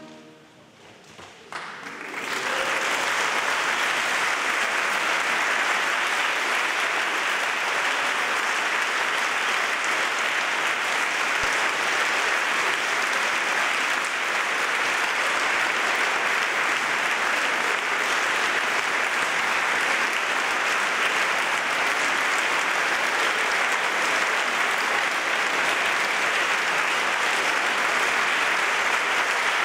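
A large concert audience applauding steadily in a reverberant church. The applause sets in about two seconds in, as the music's last chord dies away.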